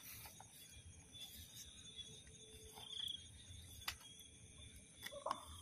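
Faint night chorus of insects, crickets, as a steady high trill, over a low rumble. A sharp click comes about four seconds in, and a short rustle comes near the end.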